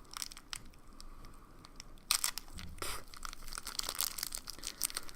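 Plastic packaging bag crinkling and tearing as it is worked open by hand: scattered crackles with a louder rustle about two seconds in.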